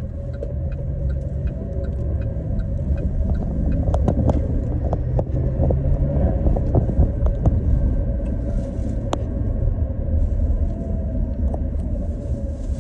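Steady low road rumble of a car driving, heard from inside the cabin. Light regular ticking runs through the first few seconds, and a few sharp clicks come about four seconds in and again near nine seconds.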